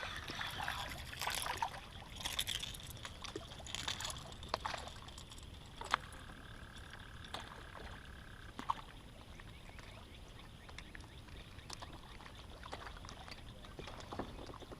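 Water splashing and lapping around a kayak, with a few sharp knocks, busiest in the first few seconds, and a faint steady tone for a couple of seconds in the middle.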